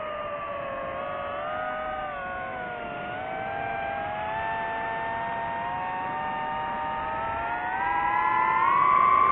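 DJI FPV drone's motors and propellers whining in flight, the pitch wavering and then climbing, louder over the last second or two as the drone throttles up to speed.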